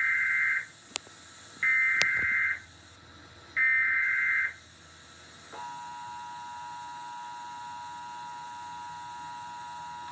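Emergency Alert System SAME header: three harsh, buzzing data bursts of about a second each, then the steady two-tone EAS attention signal. The attention signal starts about five and a half seconds in and is quieter than the bursts.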